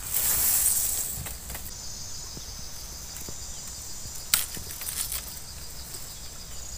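Rustling of dry bamboo leaves and litter for the first second or so. Then a steady high-pitched insect buzz, with a single sharp click about four seconds in.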